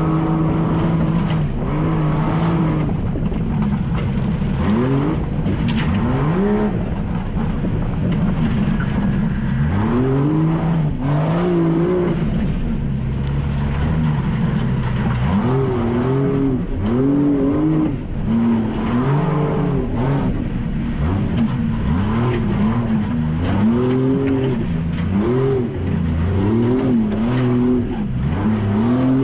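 Ultra4 race Jeep Cherokee XJ's engine, heard from inside the cab, revving up and falling back again and again as the throttle is worked over rough trail. Occasional short knocks are mixed in.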